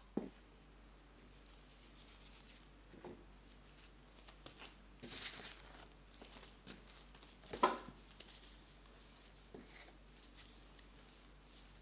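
Risen, sticky bread dough handled on a floured bamboo board by latex-gloved hands: quiet squishing and rustling with a few soft thuds, the loudest about two-thirds of the way through as the dough is set down on the board.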